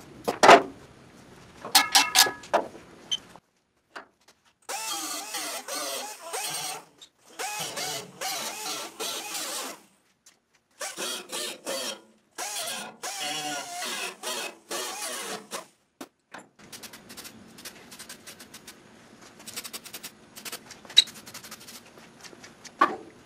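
Handheld air-powered grinder run in four bursts of two to three seconds, stopping and starting, grinding paint off sheet-metal flanges to bare metal for weld-through holes; its pitch wavers as it is loaded against the metal. Sheet metal clanks and rings a couple of times in the first few seconds, and light clicks and taps follow the grinding.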